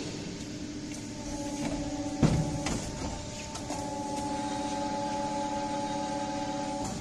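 HS 20 CNC automatic pipe bending machine running a bending cycle: motor whines that start and stop in stages, with a loud clunk about two seconds in and lighter mechanical clicks.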